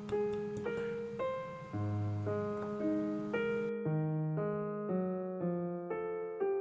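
Background piano music: a gentle melody of single notes about twice a second over held low notes.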